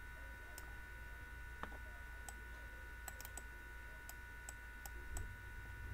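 Faint, irregular clicks from a pen input device as handwriting is drawn on a computer screen, over a steady low electrical hum with a faint high whine.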